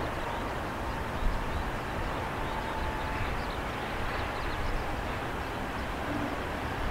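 Jet engine noise from a Boeing 737-800's CFM56-7B turbofans as the airliner moves along the runway: a steady rumble with a faint whine.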